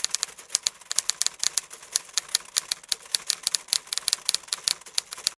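Typewriter typing sound effect: a rapid, uneven run of sharp key clicks, several a second, that stops abruptly.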